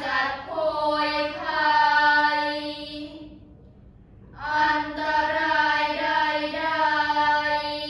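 A group of five girls chanting Buddhist prayers in unison, on long held notes at a nearly steady pitch. The chanting comes in two phrases with a short pause for breath a little before halfway.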